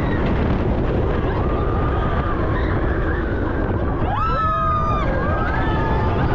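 Steady, loud rumbling travel noise of a moving vehicle. About four seconds in, a brief high pitched sound rises and holds for about a second.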